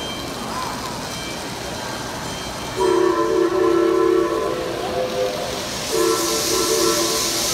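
Model train horn, a chord of several held tones, sounding twice: a blast of about two seconds starting about three seconds in, and a shorter one starting about six seconds in. A rushing hiss comes up under the second blast.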